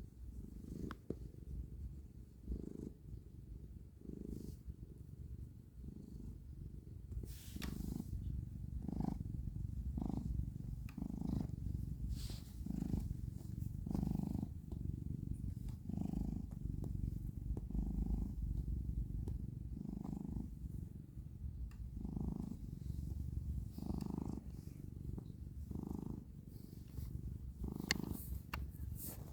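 Domestic cat purring close to the microphone: a continuous low rumble that swells and fades with each breath, about every second and a half. A brief rustle about a quarter of the way in and a few small clicks near the end.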